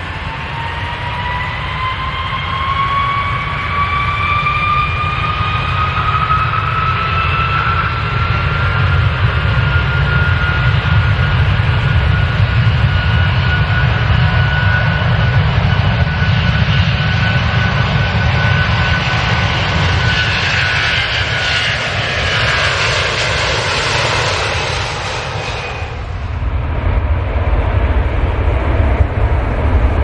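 An airplane's jet engines at take-off power: a heavy low rumble with a turbine whine that rises in pitch and then holds steady while the roar grows brighter. Near the end the whine and hiss cut off suddenly, leaving a low rumble that swells louder.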